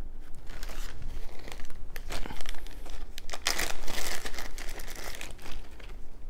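Plastic zip-top bag crinkling as it is handled, in irregular bursts that are loudest about two seconds and three and a half seconds in.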